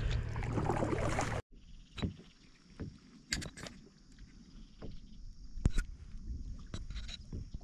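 Kayak paddling with the blade splashing and washing through the water, cut off abruptly about a second and a half in; after that, a quieter stretch with a few scattered sharp knocks and taps against the kayak.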